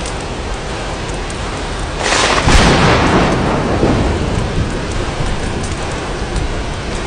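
Steady rain on glass, with a crack of thunder about two seconds in that rumbles and fades over the following few seconds.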